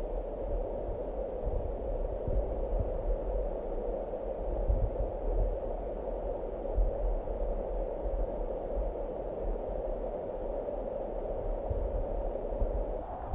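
Steady rushing of a shallow river running over stones, with an uneven low rumble underneath.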